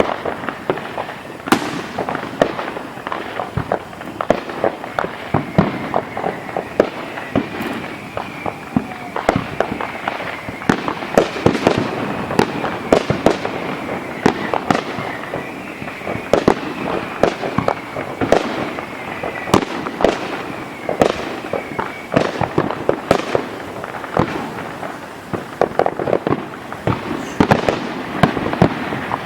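A fireworks display going off: a dense, irregular string of sharp bangs and pops from shells and launches. A wavering high tone runs through the middle part.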